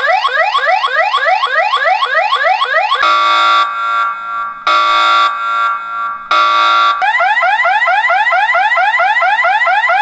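Loud electronic alarm siren of an X-Sense home security base station, playing its three alarm tones in turn. First comes a fast rising sweep that repeats about five times a second. About three seconds in, it changes to a steady high tone sounding in three long pulses. At about seven seconds it switches to another repeating rising sweep.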